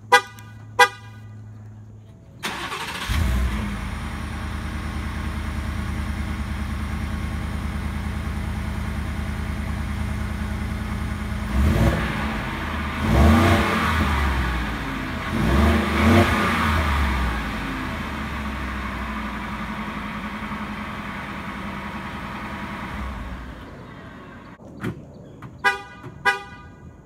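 2018 Ford F-150 XLT pickup cold-starting: two short horn chirps, then the engine catches about two and a half seconds in and runs at a fast idle, with three quick revs in the middle before it settles and dies away. A few more short horn chirps near the end.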